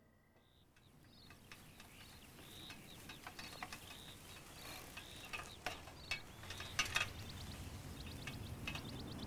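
Outdoor ambience fading in from near silence: small birds chirping repeatedly, with a few sharp clicks around the middle and near the end.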